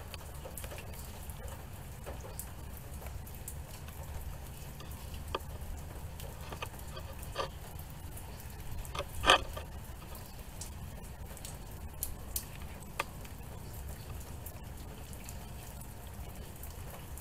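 Rain dripping and pattering in scattered drops over a low steady rumble, with one sharper, louder tap about nine seconds in.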